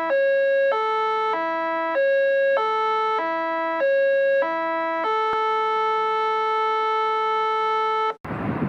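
Electronic intro jingle: a tune of short, evenly paced synthesized notes stepping up and down, ending on one long held note that cuts off suddenly near the end, where wind noise on the microphone takes over.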